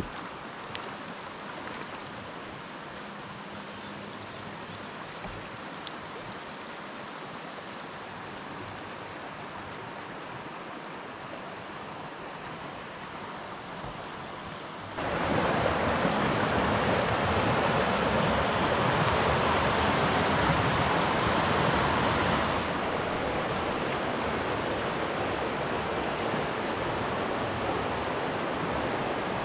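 Mountain creek rushing steadily over a stony bed. About halfway through the rushing abruptly becomes much louder, and about seven seconds later it drops back part of the way.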